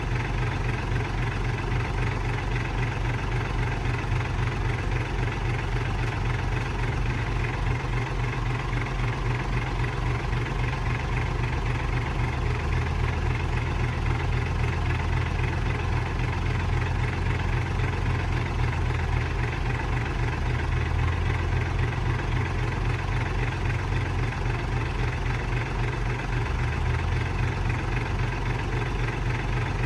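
Heavy diesel engine running steadily with a deep, low rumble that grows a little louder partway through.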